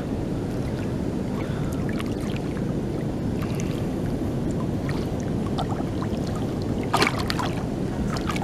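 Steady rush of flowing spillway water, with small splashes from a snook being held by the tail in the shallows, and one louder splash about seven seconds in.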